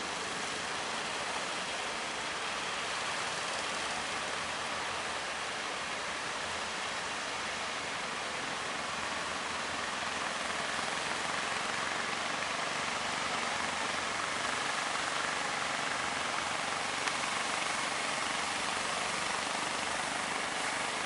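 Steady rushing noise of waves breaking and white water churning at a rough harbour mouth, a little louder in the second half.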